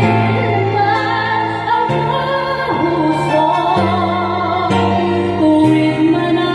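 A woman singing with vibrato into a microphone over an instrumental backing track, whose low notes are held and change every second or two.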